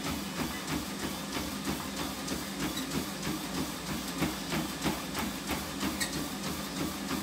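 Running footfalls striking a treadmill belt in a steady rhythm, about three a second, over the treadmill's steady motor hum.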